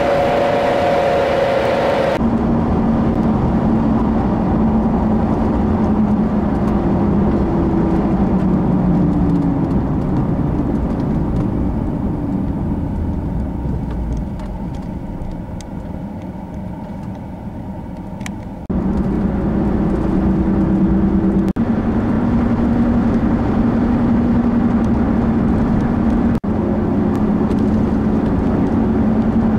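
Car engine and road noise heard from inside a moving car: a steady drone with a low hum. It changes abruptly twice and is quieter for a few seconds before the second change.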